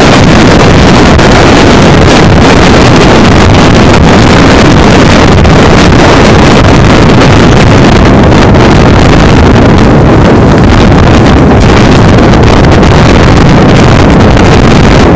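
Loud, steady wind buffeting the microphone of a moving car, with the car's engine and tyre rumble underneath.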